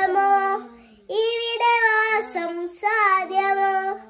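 A young girl singing a Malayalam poem unaccompanied, in long phrases with held notes and a short pause about a second in.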